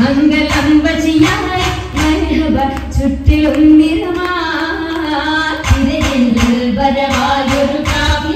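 Female voices singing a Mappila song for an Oppana dance, with the dancers' hand claps in time.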